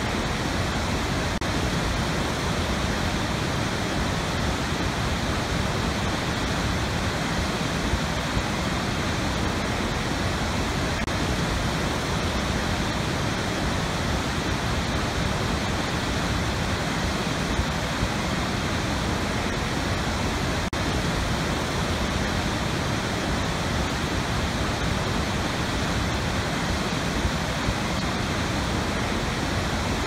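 Large waterfall: a steady, unbroken rush of falling water.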